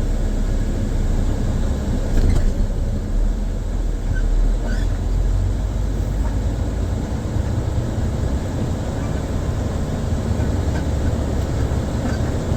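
Loaded grain truck's engine running with a steady, low rumble as the truck drives, with a few faint clicks and rattles over it.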